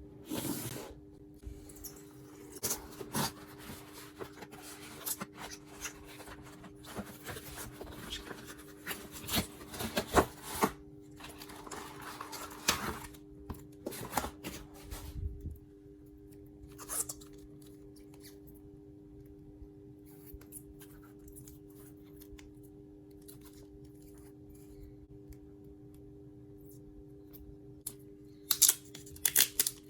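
Cardboard and paper packaging of an iPhone 12 Pro Max box being torn open and handled: tearing, scratching and sharp clicks over a steady low hum. It goes quieter past the middle, then there is crinkling near the end.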